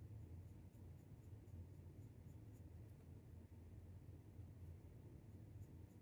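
Faint scratching and ticking of a fine paintbrush working acrylic paint onto a 3D-printed plastic bust, over a low steady hum.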